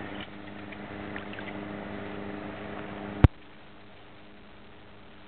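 A boat's motor runs steadily at idle. About three seconds in a single sharp click cuts it off, and only a faint hiss remains.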